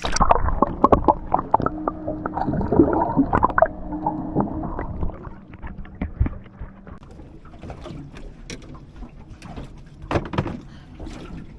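Water splashing and gurgling beside a small boat as a released fish goes back in, with a run of knocks and clunks, loudest in the first five seconds or so, then fainter scattered knocks.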